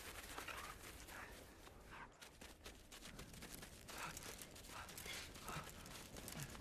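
Faint footsteps and rustling of someone running through dry brush and vines, heard as many small, quick clicks and crackles.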